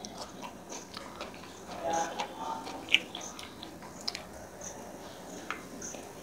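A person chewing food, with soft, wet mouth clicks, then drinking cola from a plastic bottle, with sharp little clicks about four seconds in.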